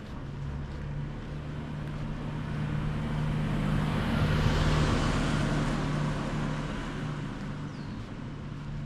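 A vehicle driving past on a wet street: the tyre hiss and a steady low engine hum swell to a peak about halfway through, then fade away.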